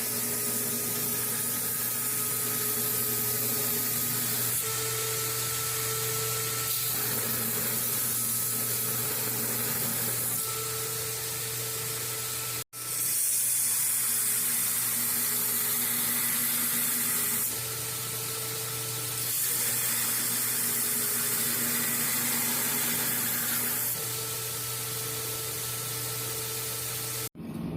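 Grinder rough-grinding a forged steel knife blade: a steady grinding hiss over a motor hum, its loudness stepping up and down in sections, with a brief break near the middle.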